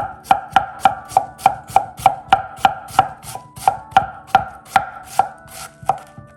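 Miyabi Birchwood SG2 gyuto chef's knife rapidly chopping a baby green cabbage on a cutting board: even knocks about three a second, spacing out slightly near the end.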